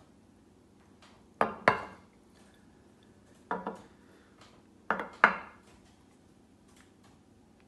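Agate candle holders set down on a hard countertop: sharp stone clacks, mostly in pairs, three times over, the last pair the loudest.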